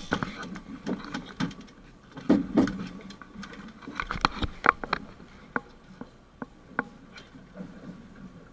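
Irregular sharp knocks and clatter from a catch and tackle being handled aboard a small fishing boat, over a low steady rumble.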